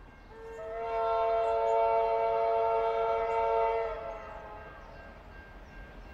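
Diesel locomotive horn sounding one long multi-note chord of about three and a half seconds, its notes coming in over the first half second, as the locomotive approaches.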